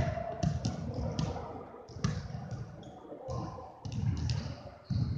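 Basketball being dribbled on a hardwood gym floor, a run of irregular bounces with a lull about three seconds in.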